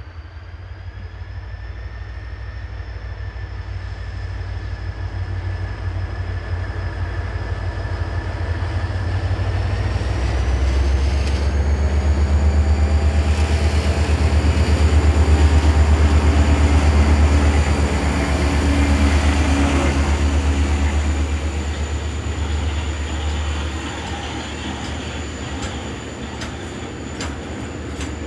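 Diesel locomotive D-2351 hauling a freight train past, its deep engine rumble building to a peak about halfway through and then easing as the wagons roll on. A steady high whine rises in pitch about ten seconds in, and a few sharp clicks come near the end.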